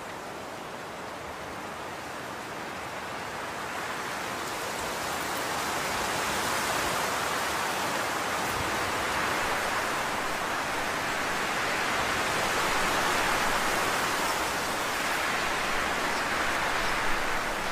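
A steady rushing hiss, like rain or running water, that grows gradually louder over the first few seconds and then holds.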